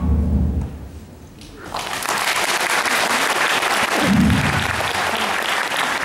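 The music's last low note fades out within the first second. Then audience applause starts and carries on evenly, with a short low thud about four seconds in.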